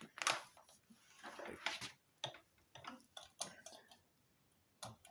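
Light clicks and knocks of plastic and metal vacuum cleaner parts being handled and fitted together, in irregular taps with a short pause near the end.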